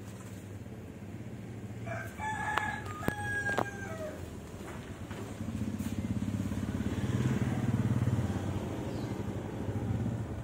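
A rooster crowing once about two seconds in, along with a few sharp knocks; then a low engine hum swells and fades as a vehicle passes.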